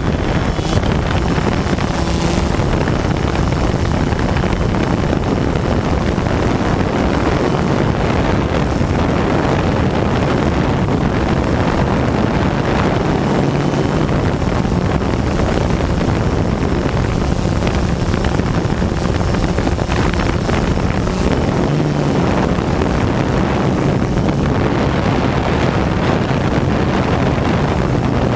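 Steady buzz of a quadcopter drone's motors and propellers, picked up by the camera mounted on the drone itself, mixed with wind noise on the microphone.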